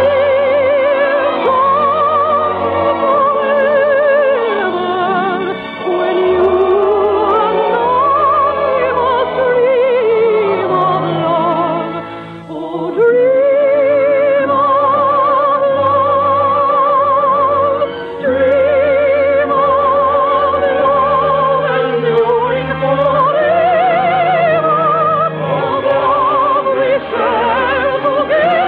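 Orchestra with a singer in operatic style, holding long notes with strong vibrato in a romantic ballad. The music dips briefly about twelve seconds in before the melody picks up again.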